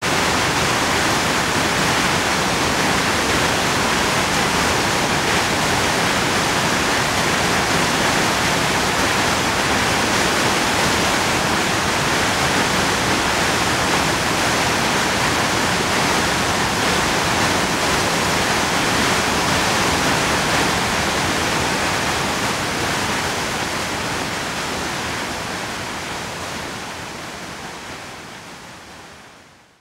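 Waterfall running with a steady, even rush of falling water. It fades out gradually over the last several seconds.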